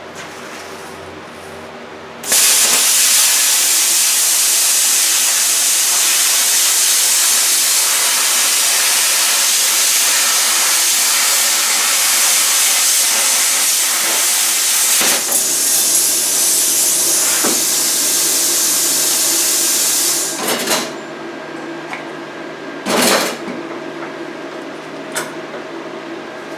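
Plasma cutter cutting steel sheet along a clamped template: a loud, steady hiss starts abruptly about two seconds in and cuts off after about eighteen seconds. A steady machine hum runs before and after the cut, with two short blasts of air near the end.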